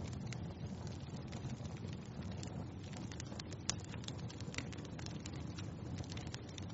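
Wood fire crackling in a fireplace: a steady low rumble of flames with irregular sharp pops and snaps, one louder pop a little past halfway.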